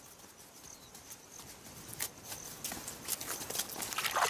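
Cheetahs lapping water from a shallow pool, a quickening run of wet clicking laps starting about halfway through, over a faint steady high background hum.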